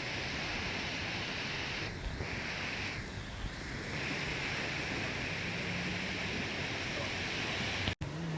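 Steady outdoor hiss, strongest in the upper-middle range, dipping briefly twice and cutting out abruptly near the end.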